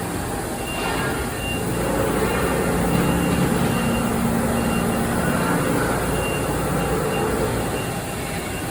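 Mazak horizontal machining center running under power: a steady machine hum and whir that swells through the middle, with a faint high tone coming and going in short dashes.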